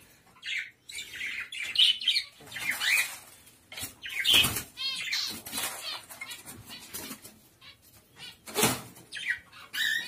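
Pet budgies and cockatiels flapping and fluttering inside a small wire cage in several short bursts, the loudest about four seconds in and again near the nine-second mark, mixed with short bird chirps.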